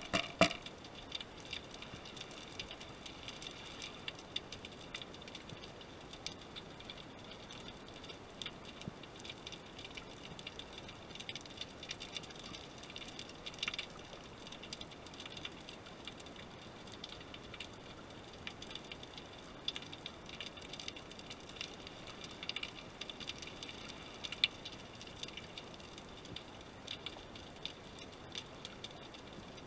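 Underwater ambience picked up by a submerged camera: a faint hiss with irregular sharp clicks and crackles scattered throughout, a few louder ones standing out.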